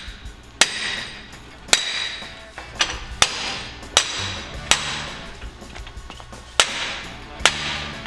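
Sledgehammer blows driving a chilled steel sleeve into a Jeep's front axle tube, about one strike a second. Each blow is a sharp metallic impact that rings briefly.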